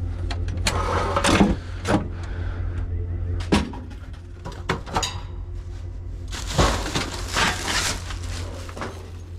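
Stuff being handled and moved about: a string of knocks and clunks, with a longer rustling stretch about two-thirds of the way through, over a steady low hum.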